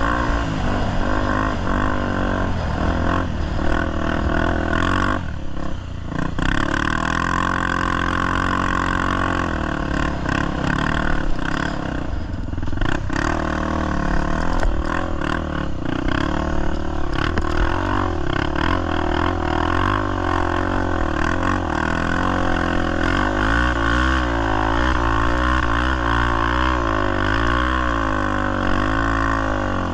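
Honda Tornado single-cylinder four-stroke trail-bike engine running under load as it is ridden, its revs rising and falling throughout, with quick up-and-down rev changes over the last several seconds.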